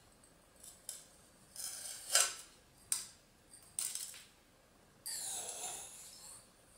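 Aquarium gravel poured from a small cup into an empty glass tank, rattling onto the bare glass bottom in a few short rushes, with clinks of the cup. Near the end there is a longer scraping rustle as the cup scoops more gravel from the bucket.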